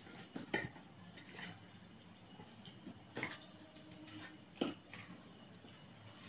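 Hands squeezing and turning raw chicken drumsticks in a thick spice marinade on a steel plate: faint wet squishing and rubbing, with a few sharp clicks as pieces knock against the plate.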